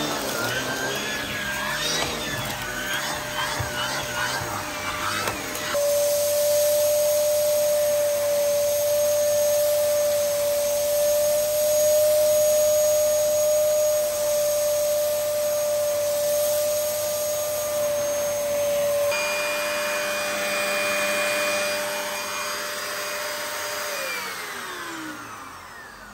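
Dyson DC07 Animal upright vacuum cleaner running. Its pitch wavers while the hose's turbo brush tool sucks up cornflakes from carpet, then it holds a steady whine. Near the end the motor is switched off and the whine falls away as it spins down.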